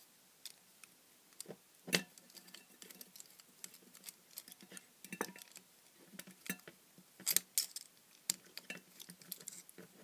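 Small screwdriver working the screws that hold a small DC motor to its bracket, with scattered faint clicks and light metallic ticks as tool, screws and parts are handled. One sharper click comes about two seconds in, and a few more close together past seven seconds.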